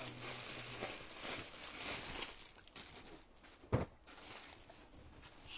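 Cloth rustling as an embroidered suit is handled and unfolded by hand, with one short, sharp knock a little past halfway.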